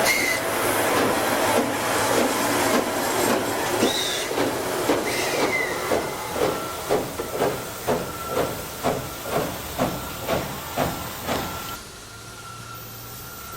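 C62 steam locomotive hissing steam, then chuffing in an even beat of about two to three exhausts a second that grows fainter and cuts off about twelve seconds in.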